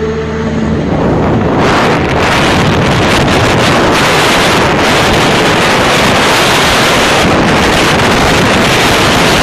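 Loud, steady wind noise buffeting the microphone of a vehicle moving at road speed. A faint engine hum at the very start is soon drowned out by the wind.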